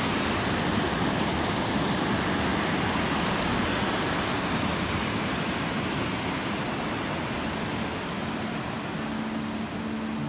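Steady rush of water pouring down a concrete dam spillway. Guitar music fades in near the end.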